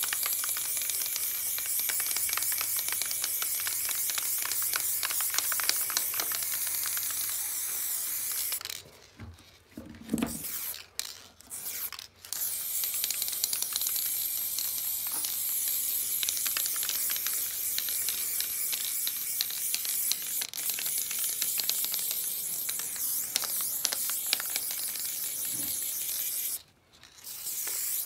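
Aerosol spray paint can spraying in long, steady hisses, stopping about a third of the way in and again near the end, with a couple of short spurts in the first pause. A low knock comes during that pause.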